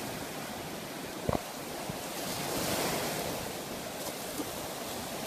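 Ocean surf breaking and washing up a sandy beach, with wind buffeting the microphone. A single brief thump about a second in.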